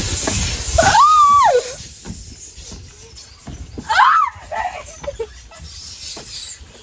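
Rush and rumble of riders sliding fast down an enclosed tube slide, which drops away after about two seconds. A high whooping cry rises and falls about a second in, and another short cry comes around four seconds in.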